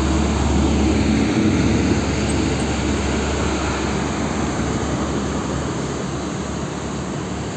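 Heavy diesel trucks passing close on a road: a dump truck and then a tarpaulin-covered cargo truck, with steady engine drone and tyre roar. The sound is loudest in the first two seconds and eases off after.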